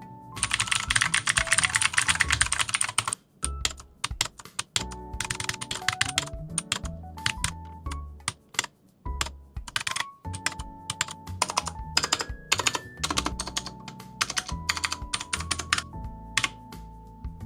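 Typing on a Neolution Galactus 65% mechanical keyboard with clicky blue switches: a fast, dense flurry of key clicks for the first three seconds or so, then slower, separate keystrokes.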